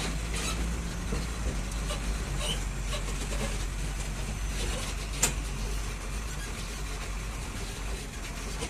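Old Ashok Leyland tractor-trailer truck driving on a rough dirt road, its diesel engine running with a steady low hum under constant road noise. One sharp knock about five seconds in.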